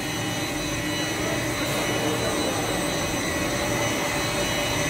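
A plastic film blowing (blown-film extrusion) machine running steadily: a continuous mechanical hum and rush with several constant high tones held over it.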